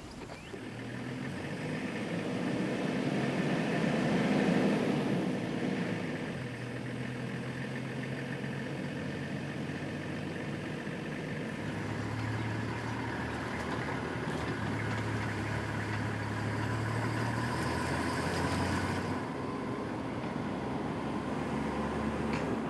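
A vehicle engine running steadily as the vehicle drives along, its low drone shifting in pitch a few times.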